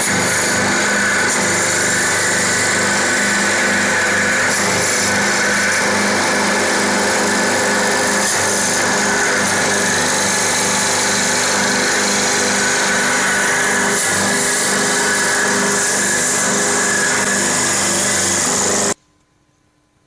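CNC wood lathe running, a steady machine whine with several held tones over a hiss as it turns a workpiece. It stops suddenly near the end.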